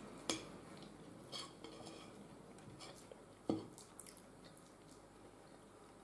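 Metal spoon clinking against a ceramic soup bowl: two sharp clinks about three seconds apart, with a few lighter taps and scrapes between.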